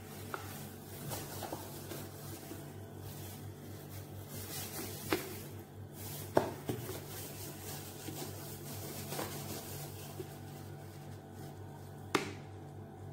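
Containers being handled on a kitchen counter: light rustling and three sharp knocks as things are set down, over a steady low hum.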